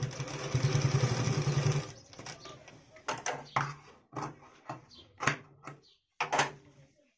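Bharat sewing machine running at speed for about two seconds, stitching fabric, then stopping. It is followed by a series of short, sharp clicks and snips as the work is pulled from under the presser foot and the threads are cut with scissors.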